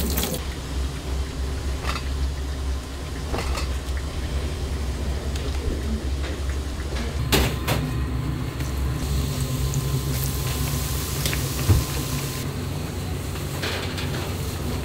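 Restaurant kitchen at work: a steady low hum with scattered knocks and clatter of utensils and cookware. The sharpest knocks come about seven seconds in and again near twelve seconds.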